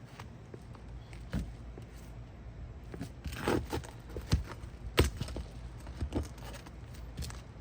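A roof snake worked under asphalt shingles to free roofing nails: scattered sharp metal knocks and taps, with a short burst of scraping about halfway through and the loudest knock a little after it.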